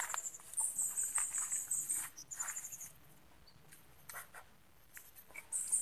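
Rapid, very high-pitched chirping in short runs: a long run of quick chirps, a brief one just after, and another near the end, from a small animal. Faint scuffs and clicks sound underneath.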